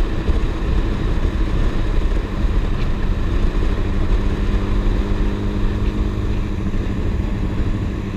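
Yamaha FZ6 Fazer's 600 cc inline-four engine running at a steady cruising speed while riding, heard from the rider's position with heavy wind noise on the microphone.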